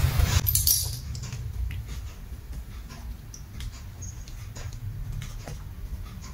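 Music ends about half a second in, giving way to faint scattered clicks and taps of a cat pawing at small toys in a plastic basin, over a low steady rumble.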